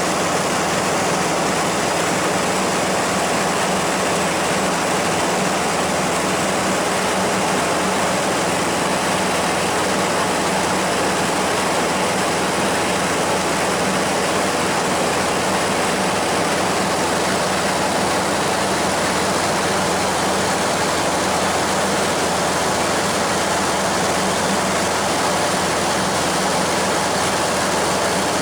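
Steady drone of a small propeller plane's engine and rushing air, heard from inside the cabin in flight: a constant low hum under a loud, even wash of noise.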